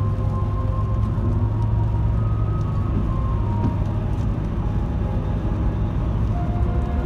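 Steady road noise of a car driving on a wet highway, heard from inside the cabin: an even, low rumble of engine and tyres.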